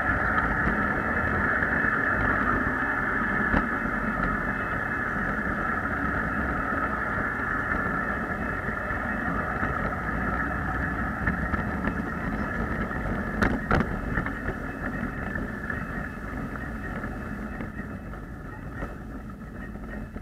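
Motor of a ride-on backyard miniature train running with a steady whine that slowly grows quieter, with a few sharp clicks along the way.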